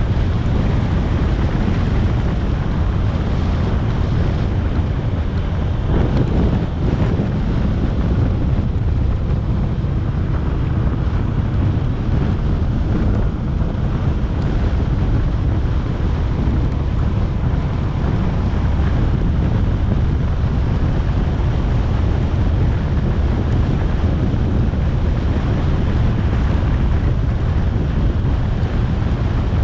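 Steady wind rush on an action camera's microphone on a moving motorcycle, a heavy low rumble with no pauses.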